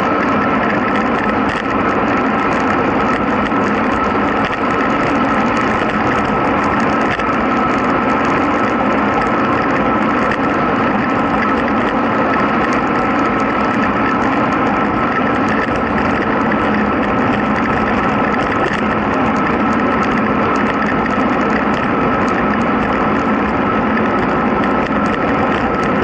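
Steady rush of wind and road noise at a camera microphone on a bicycle descending at about 50 km/h, with a steady thin whistle running through it.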